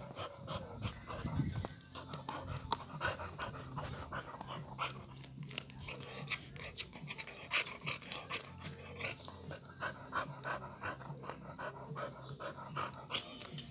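Spaniel gnawing on a twisted chew stick: a run of small, irregular crunches and clicks from its teeth working the chew.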